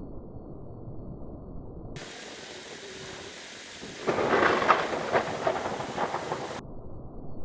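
Rain hissing, then a sudden close thunderclap about four seconds in that crackles and rumbles for a couple of seconds. The storm sound starts and stops abruptly around a dull, steady low noise.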